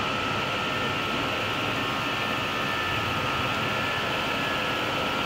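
Steady flight-deck noise of an Airbus A320 in its initial climb after takeoff: an even rush of air and engine hum, with a faint steady high tone.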